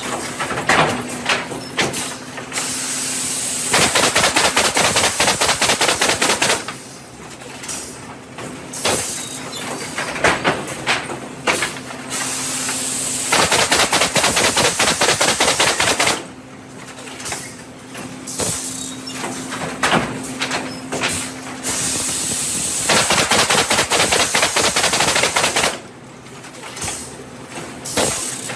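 Woodpecker pallet nailer at work. Its pneumatic nail guns fire in rapid volleys over a steady machine hum, and every nine seconds or so comes a loud spell of hissing air lasting two to three seconds.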